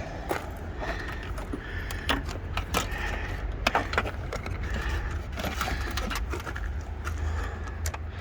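Scattered clicks, taps and rustles of a wiring cable being handled and fed through a hole, over a steady low rumble.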